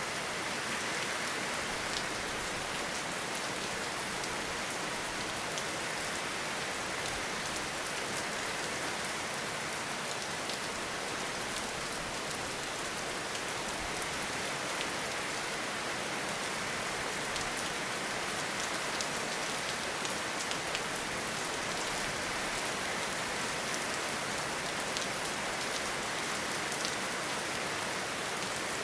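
Steady rain falling: a dense, even hiss with scattered sharp ticks of individual drops hitting close by.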